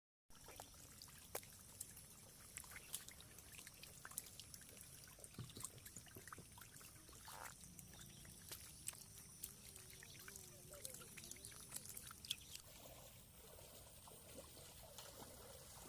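Faint trickling and splashing water with scattered small clicks.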